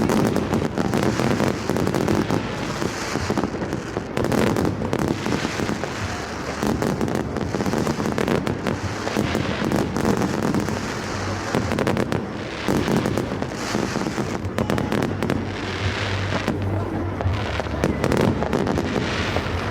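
Fireworks going off in a continuous, dense barrage of overlapping bangs and crackles.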